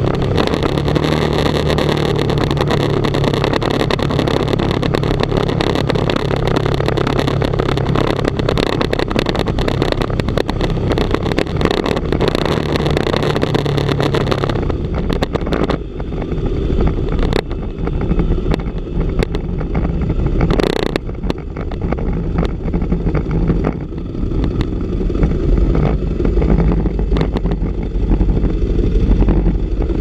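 Sport motorcycle's engine running at a steady pitch at road speed under heavy wind rush on the onboard microphone. About halfway through the sound changes suddenly: the hiss drops away and a deep, uneven wind rumble buffeting the microphone takes over, with the engine fainter beneath it.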